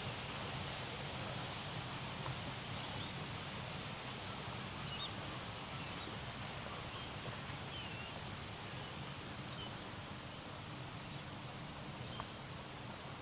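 Garden ambience: a steady rush of flowing water, slowly fading, with faint scattered bird chirps.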